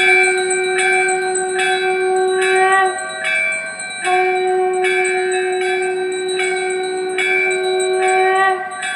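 Bell chimes ringing in a steady rhythm, about three strikes every two seconds, over a held note that drops out briefly twice: a devotional music intro played through DJ loudspeaker boxes.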